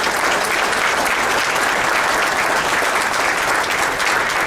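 A roomful of people applauding steadily, a dense patter of many hands clapping.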